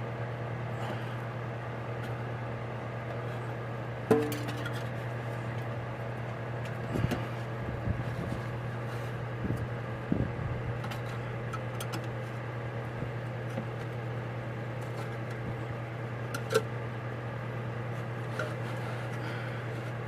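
Occasional metal clinks and scrapes of a butter knife worked against metal carburettor parts or a chemical can, the largest knock about four seconds in, over a steady low hum.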